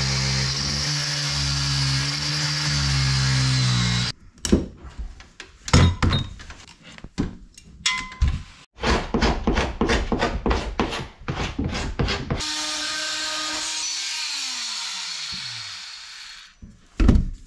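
Angle grinder cutting through the ends of protruding steel screws for about four seconds, then stopping. Then a run of sharp knocks and taps as nails are worked out of old wooden planking. Near the end a small cordless power tool runs and winds down in pitch, followed by one loud knock.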